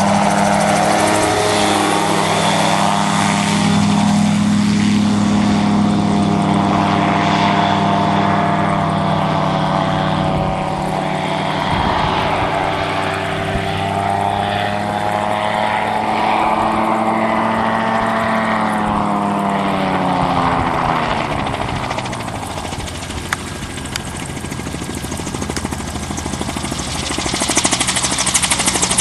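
ELA-07 autogyro's engine and pusher propeller drone steadily, the pitch sliding up and down as the machine passes and turns. The sound dips in loudness a little after two-thirds of the way through, then grows louder near the end as it comes back low over the field.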